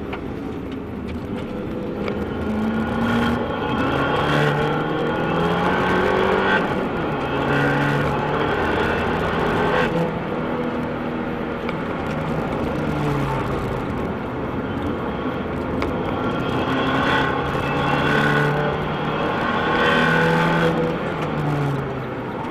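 Fiat 500 Abarth's turbocharged 1.4-litre four-cylinder engine heard from inside the cabin under hard track driving, its pitch climbing through each gear and dropping at the shifts and lifts, several times over.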